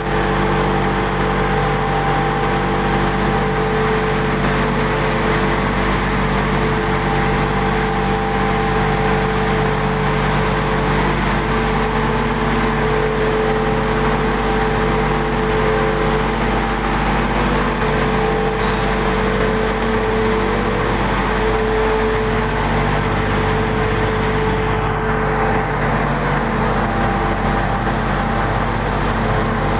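An automatic atta chakki flour mill plant running: its stone grinding mills, cyclone blower and sifter make a loud, steady machine drone with a hum of several held tones.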